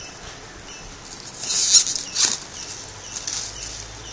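Cardboard box and plastic packaging rustling and scraping as a graphics card box is opened by hand, in two louder bursts a little after one and a half and two seconds in and a softer one past three seconds.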